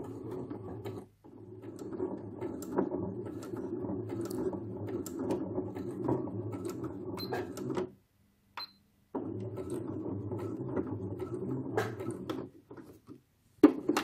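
Electric household sewing machine stitching felt. It runs in three spells: a short one, a long one of several seconds, then another of a few seconds, with brief stops between. A few clicks follow near the end.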